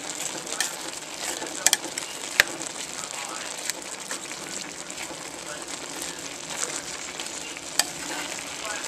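Ground beef and chopped onions sizzling as they brown in a pot, a steady frying hiss, with a few sharp clicks of the stirring spatula against the pot, the loudest about two seconds in.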